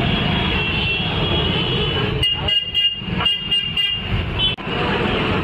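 Street traffic: vehicle horns honking several times over a steady rumble of engines, with a few sharp knocks about halfway through.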